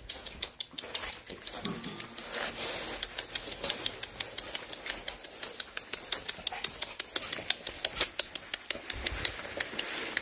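A litter of Lycan Shepherd puppies scrambling through shredded-paper bedding: a rapid, continuous crackling rustle of paper under their paws, full of small sharp clicks.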